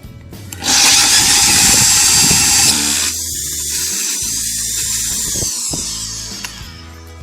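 Foster FSD-010 corded drill running with a drill bit grinding into ceramic tile, a loud hissing grind that starts suddenly under a second in. It eases after about three seconds, and the motor winds down with a falling pitch near the end.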